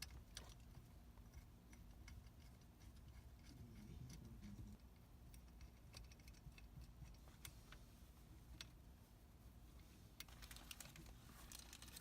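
Near silence with faint, irregular small clicks and ticks: the steering wheel's bolts being fitted and tightened onto the hub. The clicks come closer together near the end.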